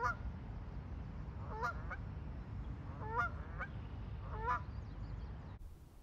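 Canada geese honking, four short bouts of two or three honks each, over a steady low rumble of wind on the microphone. The sound cuts off abruptly shortly before the end.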